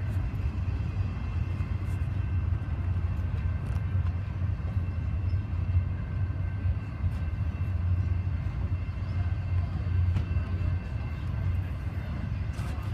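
Double-stack container freight train rolling past: a steady low rumble of the cars on the rails, with a few faint clicks.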